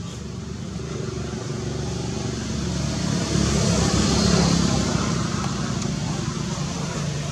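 A motor vehicle's engine passing by, growing louder to a peak about four seconds in, then fading.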